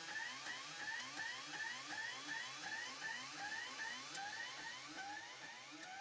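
3D printer's stepper motors whining as the print head moves back and forth, a short rising whine repeating about three times a second.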